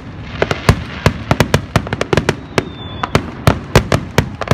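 Aerial fireworks display: a rapid, irregular volley of sharp bangs as shells burst overhead, several a second.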